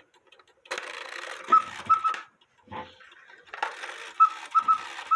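Cuckoo quail clock movement striking the quail: the bellows-driven whistle gives two three-note chirps over a hiss of air and clicking levers.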